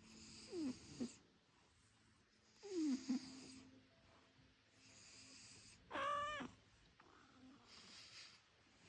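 Domestic cat snoring in its sleep: a soft wheezy rasp with each breath, about every two and a half seconds, some breaths carrying a falling whistle. About six seconds in, a brief high-pitched squeak cuts in.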